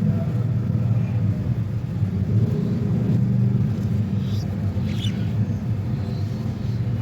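A steady low rumble throughout, with two faint, brief budgerigar chirps about four and five seconds in, the second a quick falling note.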